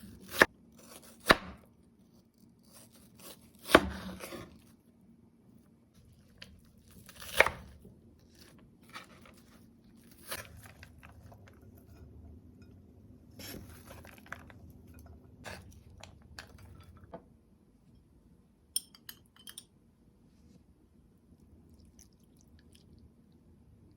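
Kitchen food prep: a few sharp knife strokes on a cutting board, four loud ones spread over the first eight seconds, then lighter taps and handling noises that thin out after about seventeen seconds.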